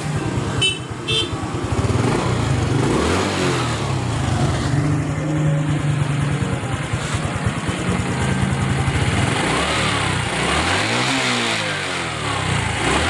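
Honda Supra X 125 FI single-cylinder four-stroke engine running at idle, then revved up and down with short throttle blips near the end. It runs smoothly and normally, its rough knock cured by a new connecting rod.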